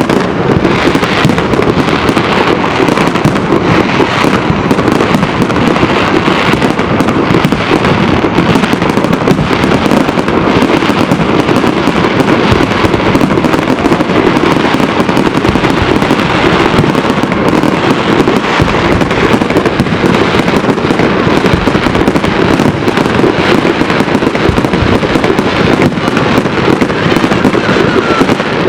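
Fireworks going off in a dense, continuous barrage: many overlapping bangs and crackles with no pause between them.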